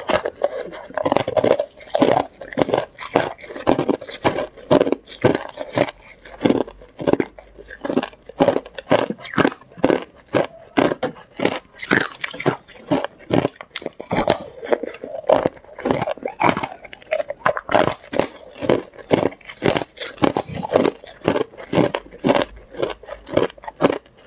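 Clear, hard ice being bitten and chewed: a fast, uneven run of sharp cracks and crunches.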